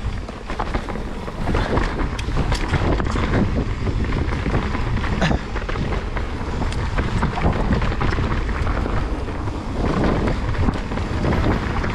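Mountain bike riding fast down a dirt and rock singletrack trail: wind buffeting the microphone over the rumble of the tyres on the dirt, with frequent small knocks and rattles from the bike over rocks and roots.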